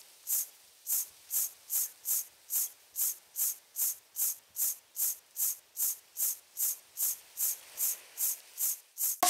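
A steady beat of short, high hissing strokes, speeding up slightly to about two and a half a second, like a shaker or hi-hat build-up in a soundtrack.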